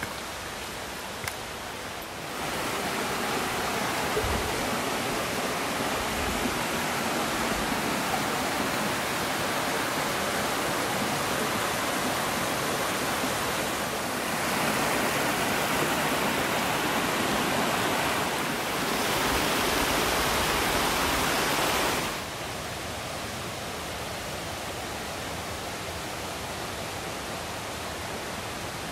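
Creek water rushing over rocks in a narrow gorge, a steady rush with no pitch. It swells about two seconds in and swells again past the middle, then drops back suddenly about three-quarters of the way through.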